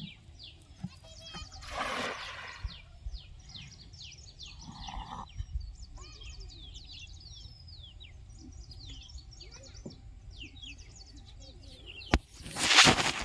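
Birds chirping throughout, many short falling calls. About two seconds in, a cast net lands on the water with a brief splash. A louder rushing noise comes near the end.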